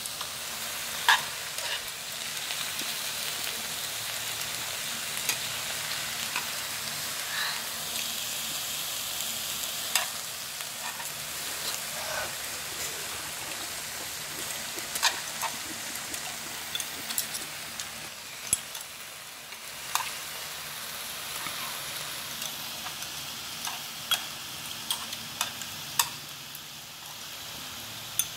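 Beef and cabbage sizzling steadily on a hot tabletop grill plate, with sharp clicks at irregular moments of chopsticks tapping the plate and dishes.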